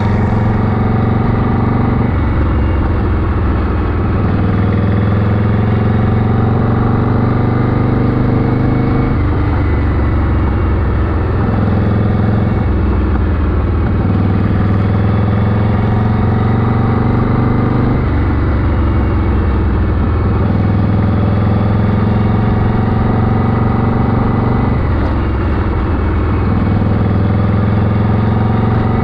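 1981 Harley-Davidson Shovelhead V-twin engine running on the move, its note shifting up and down every few seconds as the throttle changes.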